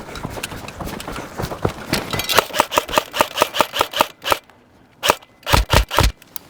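Airsoft guns firing in a skirmish: a fast, even string of sharp snapping shots about six a second, a brief lull, then a few louder shots near the end.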